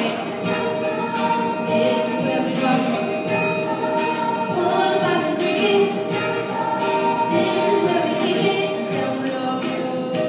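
Boys' choir singing held chords together, accompanied by acoustic guitar and keyboard.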